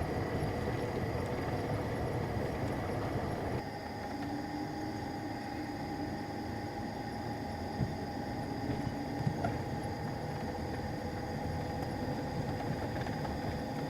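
Steady vehicle or road noise, strongest at the low end, with a few faint steady tones above it; the level drops a little about three and a half seconds in.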